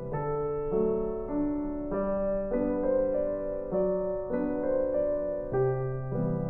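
Background music: a gentle solo piano piece, its notes and chords changing about every half second.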